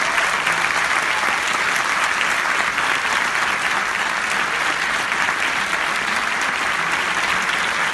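Audience applauding steadily in a concert hall: a dense, even sound of many hands clapping.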